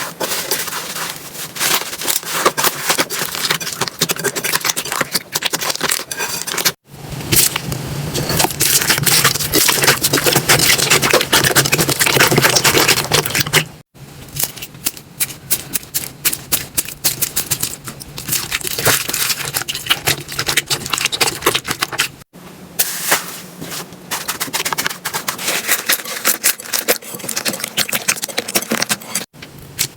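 Slime being squeezed, poked and stretched by hand, making dense wet clicking and crackling. The sound breaks off abruptly four times where one slime clip cuts to the next.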